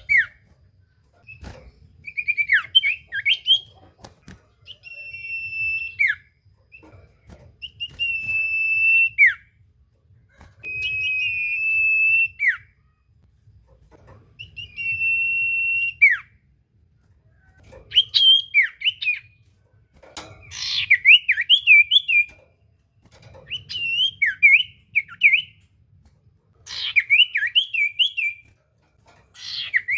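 Common iora (cipoh) singing in repeated phrases every two to three seconds. The first phrases are long, held whistles that drop sharply at the end; in the second half they become rapid, zigzagging warbled phrases.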